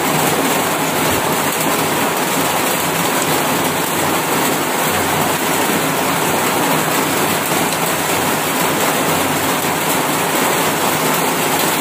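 Heavy rain falling on a corrugated metal roof, a noisy, steady hiss that does not let up.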